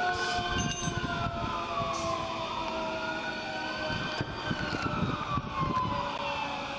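Emergency vehicle sirens wailing, more than one at once: one rises and falls slowly in pitch, about one cycle every three to four seconds, over another that holds a lower, slowly sinking tone.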